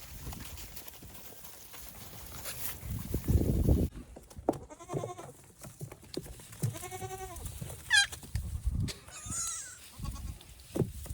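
Farm livestock bleating: a handful of separate calls in the middle of the stretch, one with a wavering pitch and one quick high call. A few dull low thumps come before and after the calls.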